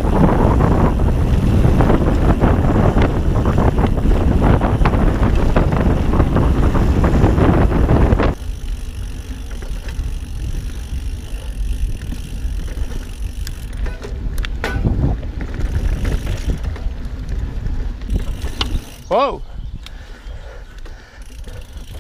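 Ghost Riot mountain bike riding fast down a dirt forest trail: loud wind rush on the microphone mixed with tyres rolling over the dirt. About eight seconds in, it drops suddenly to quieter tyre noise with a few sharp knocks and rattles from the bike.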